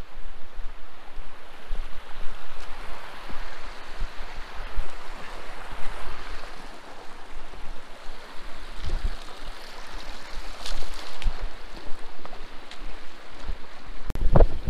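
Stream water rushing over a rocky bed, a steady hiss that swells in the middle, with low wind buffeting on the microphone. There is a short knock near the end.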